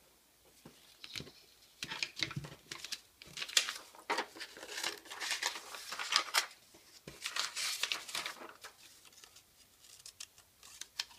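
Sheets of construction paper rustling and crinkling as they are handled, then a few short scissor snips cutting the paper near the end.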